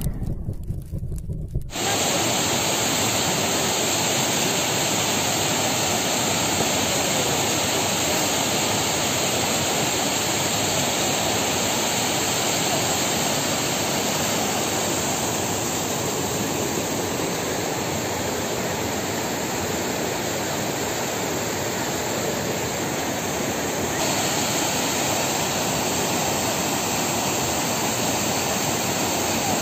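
Rushing floodwater of an overflowing spring-fed stream: a steady, even rush of water that starts about two seconds in after a brief quieter moment.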